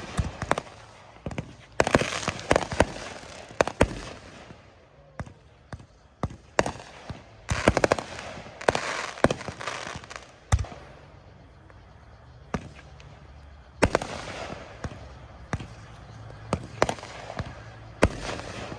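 Fireworks going off: sharp bangs in quick clusters, several followed by a spell of crackling, with short lulls between volleys.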